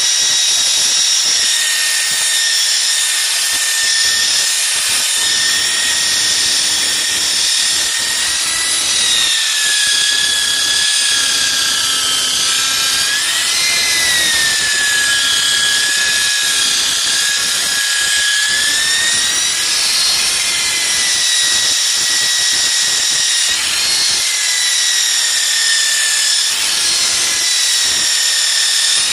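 Handheld electric polisher running continuously with its pad pressed on car windscreen glass, working polishing compound to remove deep scratches. The steady motor whine sags in pitch and recovers a few times through the run.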